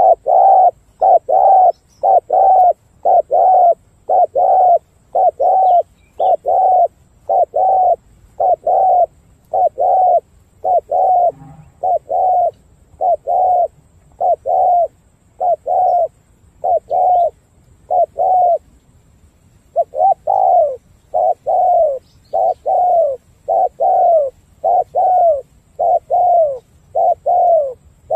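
Decoy spotted dove giving its rapid display coo (the 'rù'): a long, steady run of short falling coo notes, about two a second, with one brief pause about two-thirds of the way through.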